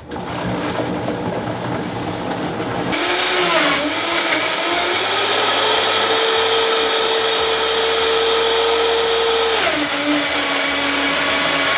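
Vitamix blender blending frozen peaches, frozen banana, oat milk and chia seeds into a thick smoothie. The motor starts at a lower speed, gets louder about three seconds in with its pitch climbing to a steady high whine, then drops back to a lower pitch near the end.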